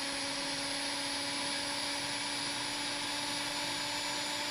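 Countertop blender motor running steadily, pureeing peas, garlic, basil, parsley and water into a smooth pea puree.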